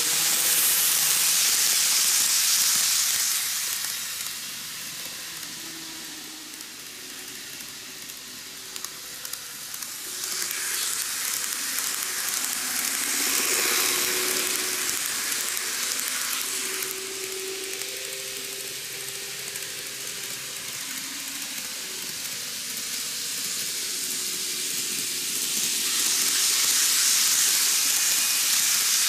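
N-gauge model trains running on a curved loop of track, a steady hissing rush of wheels on rail and small motors. It swells three times, near the start, in the middle and near the end, as trains pass close by.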